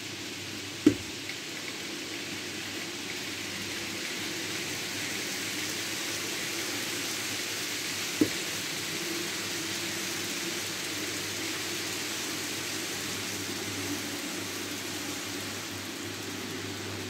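N gauge model freight trains, tank wagons and a container train, running past on the layout's track: a steady rolling hiss and hum of wheels on rail, a little louder in the middle. Two sharp clicks, about a second in and about eight seconds in.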